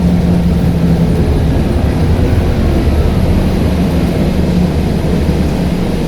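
Scania N94UD double-decker bus engine running under way: a steady low drone with a humming tone that swells and eases slightly.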